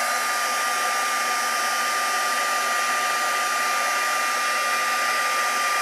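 Stampin' Up! heat tool (embossing heat gun) running steadily, a blowing hiss with a steady high whine, as it melts black embossing powder on a card.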